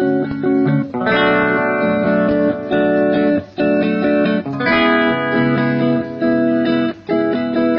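Guitar chords strummed through a Boss DD-7 delay pedal in looper mode. A short chord phrase repeats, with a brief drop in sound about every three and a half seconds.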